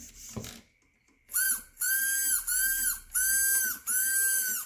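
Electric motor of an RC car whining in five short throttle blips. Each blip rises quickly, holds a high pitch for about half a second and falls away. The motor is driven by an ESC coated in Plasti Dip that is still working after being dunked in water.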